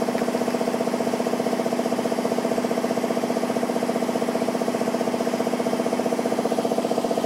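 Miyano Kira KSV-35 vertical machining centre machining under flood coolant: a steady mechanical drone with a rapid, even pulsing.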